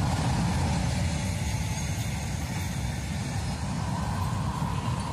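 A motorcycle riding along a road: a steady, even rumble of engine and road noise, mixed with wind.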